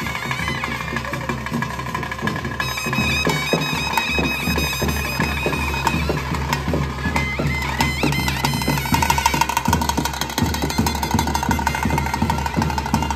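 Traditional Tulu daiva kola ritual music: a reed wind instrument playing a sustained, wavering melody over drums, with the drumming coming in thick and fast about two and a half seconds in.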